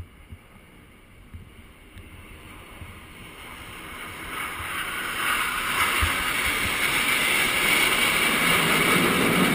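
Jet aircraft passing low overhead in a military flypast, a large jet followed by three fighter jets in formation. The rushing jet noise swells from about three seconds in to a loud, steady peak near the end.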